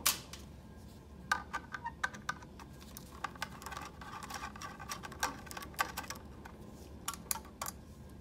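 5 mm steel nut driver clicking and rattling on the metal standoffs of a print head's data connector as they are unscrewed: a sharp click at the start, then runs of light metallic ticks with faint ringing, and a few last clicks near the end.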